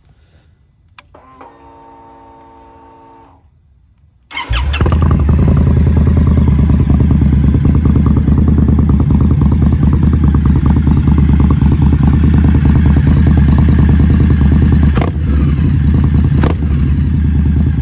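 2021 Indian Scout Bobber Twenty's V-twin engine started: after a click and about two seconds of steady whine, it fires about four seconds in. It then idles steadily and loudly through its Roland Sands Design exhaust, with two sharp clicks near the end.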